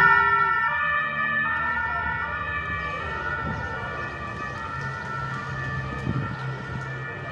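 Two-tone sirens of the race's escort vehicles, each alternating between two pitches about every three-quarters of a second, with more than one siren sounding at once.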